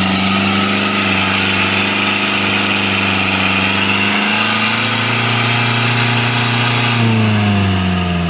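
Truck engine working hard under load while crawling through a deep muddy rut, revs held steady, rising a little past the middle and then dropping off near the end.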